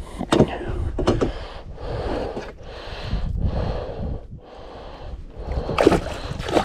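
Hooked northern pike thrashing at the surface beside a canoe: a few sharp splashes, the loudest just before the end, with rougher water noise between.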